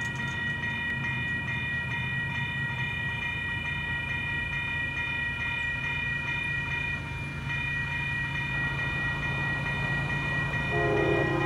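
Railroad grade-crossing bell ringing in quick repeated strokes over the low drone of an approaching diesel freight locomotive. Near the end the locomotive's horn starts to blow.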